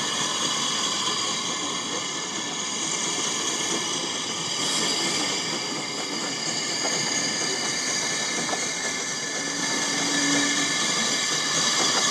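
Peckett saddle-tank steam locomotive working towards the listener with two carriages in tow: a steady hiss of steam and running noise.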